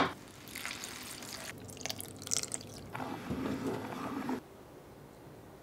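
Thick, creamy mushroom soup being stirred in a pot with a wooden spatula; the stirring stops abruptly about four and a half seconds in. Before it come a few irregular light clicks.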